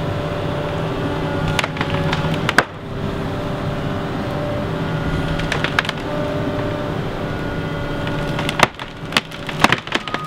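Chainsaw running steadily through a cut, with a few sharp cracks of wood along the way. Near the end the saw drops away and a quick series of cracks and snaps follows as the tree's wood gives way.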